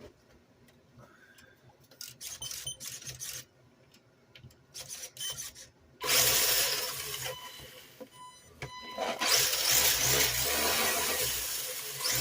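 Electric RC car run up on throttle after repair: motor and drivetrain running in two loud bursts, one starting suddenly about six seconds in and another from about nine seconds on. The bursts follow a few seconds of light handling clicks.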